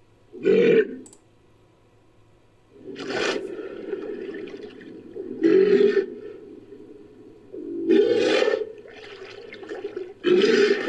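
Pinniped calls built from sea lion and walrus recordings: a short bark about half a second in, then four loud barking calls roughly every two and a half seconds over an unbroken lower call.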